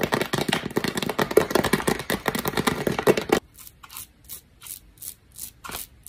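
Dense, rapid crackling and clicking of rhinestones being picked and scraped off skin by hand, thinning after about three and a half seconds into separate short scratchy scrapes, a few a second.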